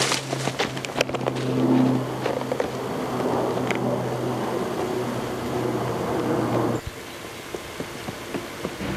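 Several people running through dry leaf litter: a quick patter of crunching steps in the first second or so, over a steady low hum that cuts off suddenly about seven seconds in.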